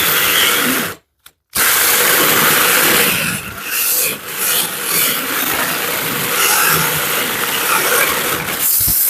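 Ferm 12-volt cordless mini chainsaw running, its chain cutting through wood. It cuts out for about half a second about a second in, then runs again, with a few brief dips midway.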